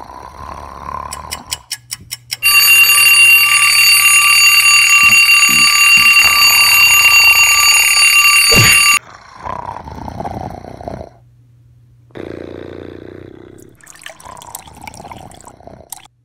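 Alarm clock ringing loudly and steadily for about six seconds, then cutting off suddenly. A few quick clicks come just before it starts.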